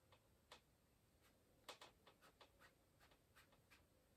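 Near silence with faint, short scratchy ticks scattered through it: a bristle brush being stroked and dabbed on an oil-painted canvas.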